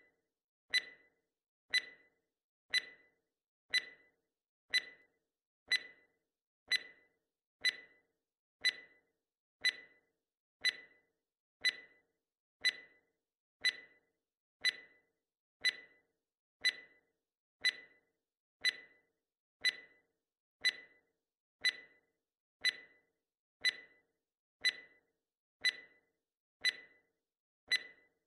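Countdown timer sound effect: a short, slightly ringing tick once a second, evenly spaced, counting down the seconds.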